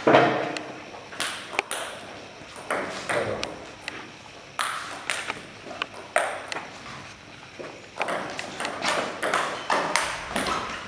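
Table tennis ball clicking off the paddles and the table, a string of sharp hits at an uneven pace through the rallies, each one echoing in a large hall.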